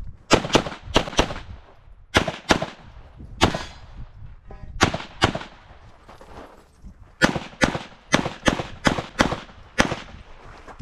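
Pistol fire in a timed stage run: shots mostly in quick pairs, with pauses of about a second between groups, then a faster string of shots from about seven seconds in.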